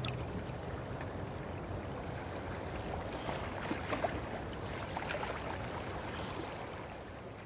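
Gentle running-water ambience, an even wash with a few small clicks around the middle, fading slowly toward the end.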